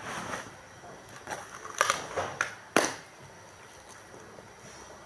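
Packaging being handled: several short, sharp crinkles and crackles, the loudest about two to three seconds in, then little more.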